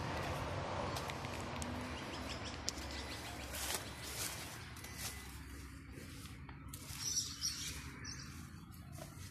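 Small birds chirping briefly a few times near the end, over a low steady background rumble, with scattered soft clicks of footsteps on the driveway.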